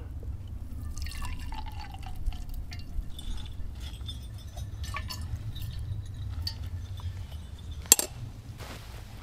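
Hot coffee being poured from a canister camp stove's cooking cup into a mug, with liquid splashing, trickling and dripping. A single sharp knock comes near the end.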